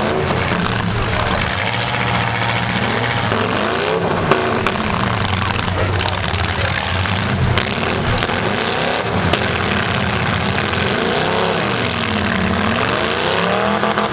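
Demolition derby car engines revving hard, their pitch rising and falling again and again as the cars drive and ram one another, with a sharp bang about four seconds in.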